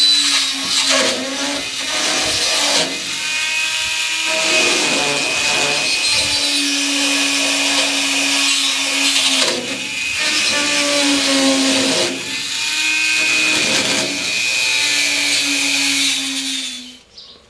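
A Dremel rotary tool with a tungsten carbide bit grinding through the sheet-steel lid of a 20 mm ammo can to cut a stovepipe hole. It runs as a steady high whine in several long runs with short breaks between them, and stops near the end.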